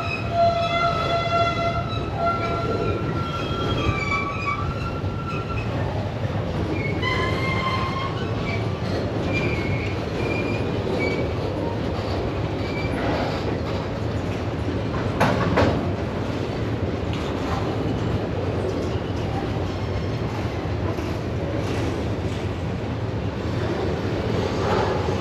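Freight train rolling through a rail yard with a steady rumble of wheels on track and broken, high-pitched wheel squeal, strongest in the first few seconds and again around eight to ten seconds in. A sharp metallic clank stands out about fifteen seconds in.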